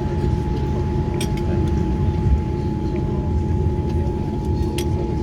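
Cabin noise inside a Boeing 787-9 airliner: a steady low rumble with a constant hum, broken by a few light clicks about a second in and near the end.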